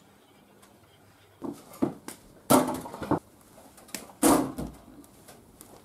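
A small ball thrown at an indoor mini basketball hoop, knocking against the backboard. There are four or five sharp knocks, starting about a second and a half in, and the two loudest come near the middle.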